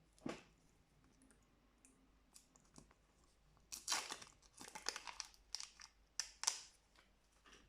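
Plastic packaging crinkling and crackling as it is handled and opened: one short tap near the start, then a few seconds of crackly crinkling bursts about halfway through.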